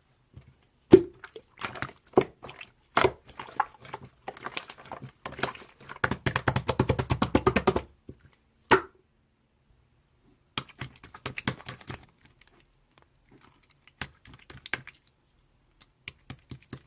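Irregular sharp clicks and light knocks, with a fast rattling run of clicks about six to eight seconds in, then sparser taps.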